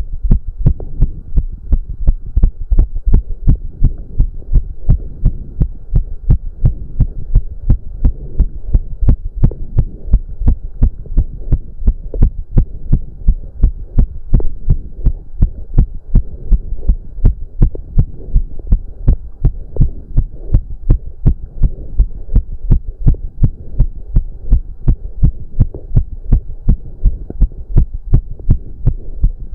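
A man's heartbeat racing from cardio exercise: a fast, even train of deep beats.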